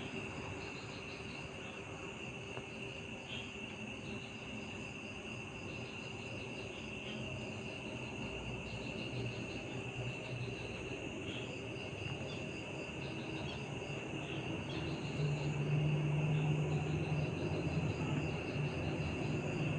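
A steady chorus of insects chirping, with repeated pulsing chirps over a continuous high trill. About three-quarters of the way through, a low steady drone comes in and becomes the loudest sound; this is the strange roaring the uploader says he heard.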